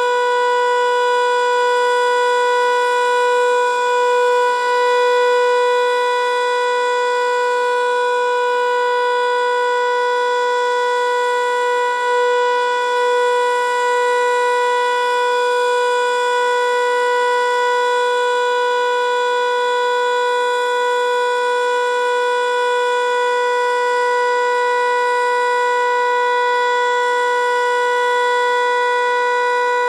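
ASC T-121 outdoor warning siren sounding the Alert signal, a loud, steady single-pitched tone that holds without rising or falling, during its monthly test.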